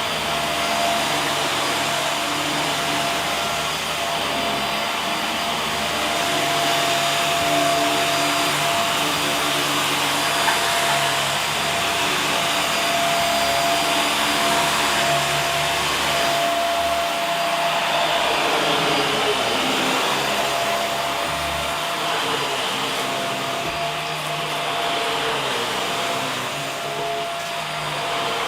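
Vacuum cleaner running steadily: a constant motor whine over the rushing noise of air suction, with slight shifts in tone as it is worked.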